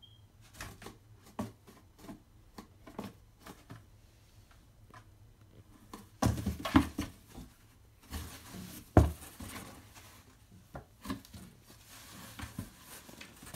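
A kitten's claws scratching and scrabbling at a cardboard box, with paws knocking against the cardboard. Light scattered scratches come first, then louder scrabbling from about six seconds in, with a heavy bump against the box near nine seconds.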